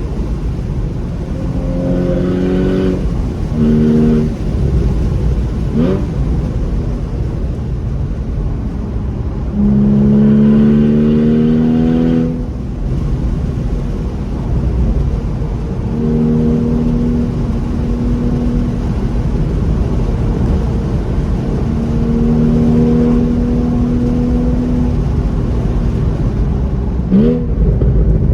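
Porsche Boxster S 981's flat-six engine through its stock exhaust, pulling through several gears with short breaks in the sound at the gear changes, then holding a steady speed for stretches. Twice, a brief rising whine sweeps up over the engine note.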